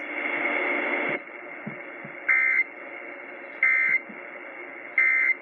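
Emergency Alert System end-of-message tones received over AM radio: three short, identical bursts of warbling digital data, about a second apart, marking the end of the severe thunderstorm warning. A burst of hiss is heard in the first second, and steady radio hiss lies under the bursts.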